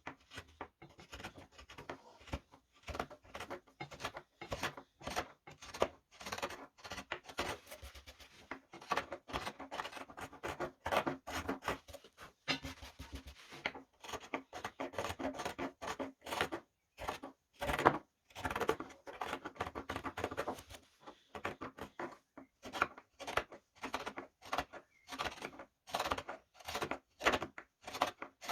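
Round carving chisel (gouge) paring wood from a spoon: short scraping cuts in quick succession, with brief pauses between runs of strokes.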